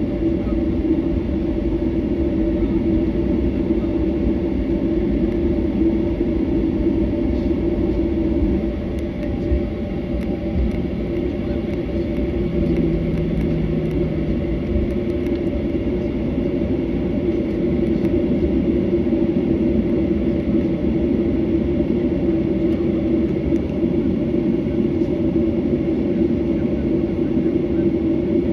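Jet airliner cabin noise during taxi: the engines' steady hum over a low rumble from the rolling aircraft, with a short low drone added about halfway through.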